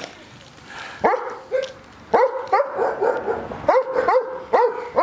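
A dog barking in a quick series of short, sharp barks, about nine in all, the first about a second in and the rest coming close together.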